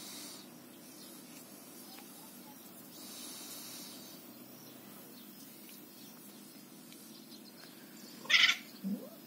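Cat's short, loud cry about eight seconds in, followed half a second later by a shorter, lower call.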